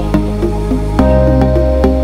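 Background music: a soft electronic track with sustained chords over a deep bass, the chord changing about a second in.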